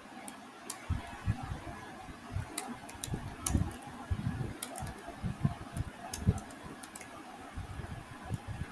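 Computer keyboard typing: irregular key clicks and dull thumps over a steady background hiss.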